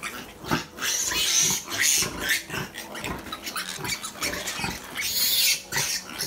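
Newborn piglets squealing and grunting in a string of short calls, with louder high-pitched squeals about a second in and again near the end.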